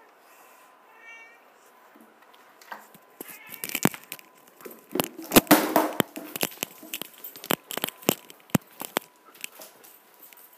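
A cat meowing in short, high calls, twice in the first second or so and once more about three seconds in. Then a run of sharp knocks, scrapes and rustling, loudest just past the middle.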